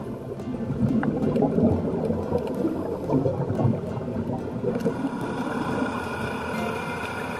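Underwater bubbling and gurgling from scuba divers' regulator exhaust bubbles. About five seconds in, a steady droning hum of several held tones comes in.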